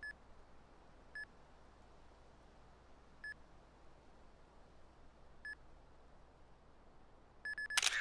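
Camera self-timer beeping: single short beeps about every two seconds, then a quick run of beeps near the end, cut off by a loud sudden click as the shutter fires.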